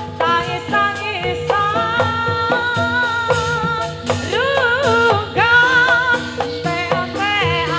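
A song sung in Javanese, with long wavering notes held in vibrato, over band accompaniment with a steady beat.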